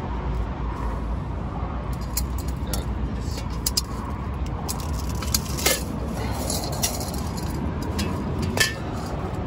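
Metal camping cookware clinking and knocking as the pot, pan and stove are handled and set up, with scattered light clinks and two louder knocks in the second half. A steady low rumble runs underneath.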